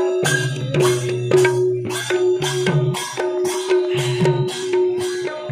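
Assamese khol barrel drums and hand cymbals (taal) playing a steady devotional rhythm of about three strokes a second, the drum tones ringing under bright cymbal clashes.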